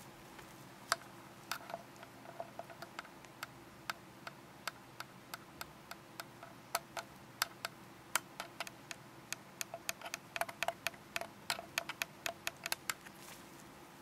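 A green-cheeked conure clicking its beak: sharp, irregular clicks, a few a second, coming faster and closer together for a few seconds near the end.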